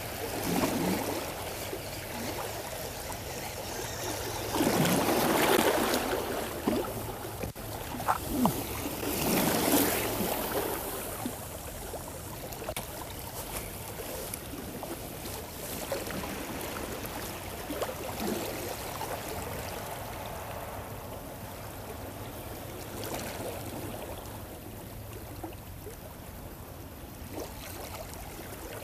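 Small waves lapping and sloshing against a stone seawall, with three louder swashes in the first ten seconds and a few sharp clicks about eight seconds in.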